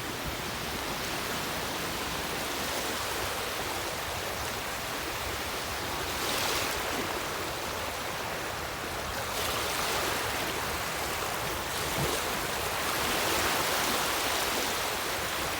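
Steady hiss of moving water, rising and falling a little in level, with no single clear event.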